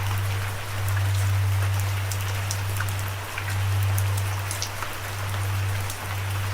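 Steady rain falling, with many individual drops ticking through the hiss, over a loud, deep hum that swells and fades every second or two.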